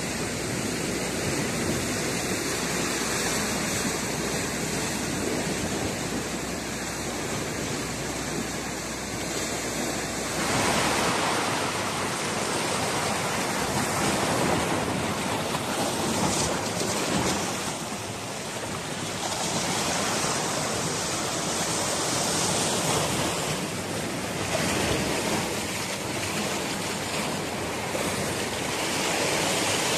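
Sea waves washing against a rocky shore: a steady rush of surf that swells and eases every few seconds. A low hum underneath stops about ten seconds in.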